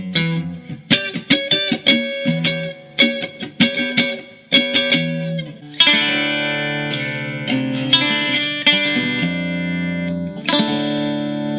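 Mexican-made Fender Stratocaster electric guitar in drop D tuning being played: quick picked single notes and short riffs, then from about six seconds in, chords struck and left to ring, with another chord about ten and a half seconds in.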